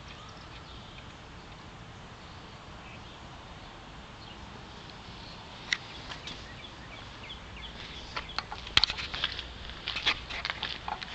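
Outdoor background with birds chirping, joined in the second half by a run of sharp clicks and scuffs, like footsteps on concrete, that grows busier near the end.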